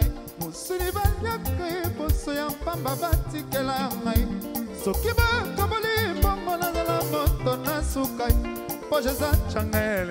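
Music with a singer over a steady beat, in an African popular style.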